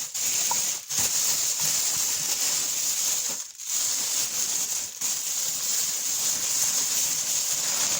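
Plastic bag being opened and handled, crinkling and rustling steadily with a few brief pauses.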